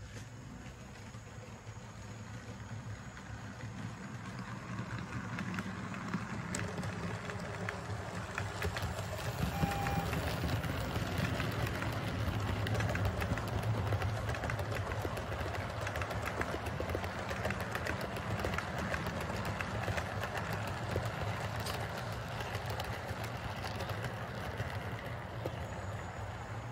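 Model freight train rolling past on the track: a steady rumble of metal wheels on rail with fine, rapid clicking. It builds over the first few seconds and is loudest about halfway through as the wagons pass close by, then eases a little.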